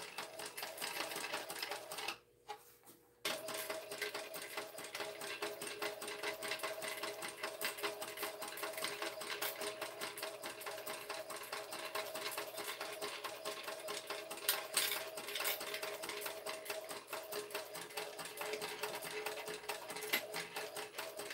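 TechSew 2750 Pro industrial walking-foot sewing machine stitching a seam through tote fabric, with a rapid, even needle rhythm and a steady motor whine. It stops for about a second near the start, then runs on steadily.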